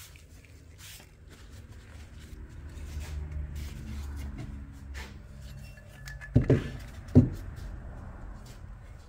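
A low rumble, then two heavy knocks a little under a second apart as the steel axe head is set down on a paper-covered wooden bench.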